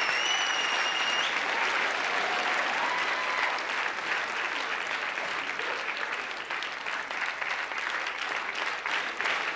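Live theatre audience applauding, the sound of many hands clapping. A high held tone sounds over it in the first second or so, and the applause thins out a little, the claps more separate, after about six seconds.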